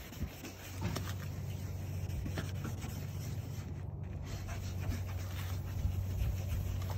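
A lemon half coated in baking soda scrubbed back and forth over a dirty, foggy plastic headlight lens: a soft, gritty rubbing, over a steady low hum.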